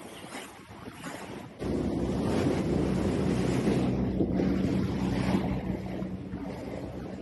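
A boat's engine runs steadily with wind buffeting the microphone and the rush of water from the wake. It starts abruptly about a second and a half in; before that there is only quieter wind and sea.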